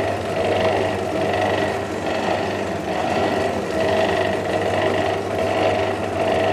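Electric dough sheeter running, its motor humming and rollers whirring steadily as pizzeta dough balls are fed through to be flattened; the whirr swells and fades about once a second.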